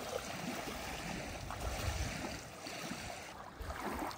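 Small lake waves lapping at a gravel shore, a steady wash of water.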